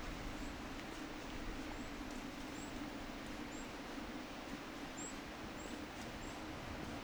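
Steady rush of water at the waterfall below Torduff Reservoir, with a small bird giving a short, high chirp about once a second.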